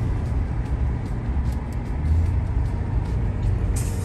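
Steady low rumble of a car's engine and tyres, heard from inside the car while it is being driven.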